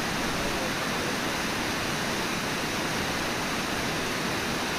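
Steady rushing of Brooks Falls, river water pouring over the lip of the falls.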